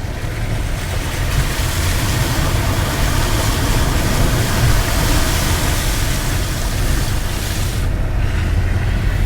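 A car driving through standing floodwater: a steady rushing hiss of water spray from the tyres over the low rumble of the car, with the rush stopping about eight seconds in.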